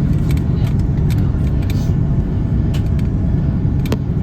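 Steady, loud low rumble inside the cabin of an Airbus A330 airliner as it lands, with a few light clicks and one sharp knock near the end.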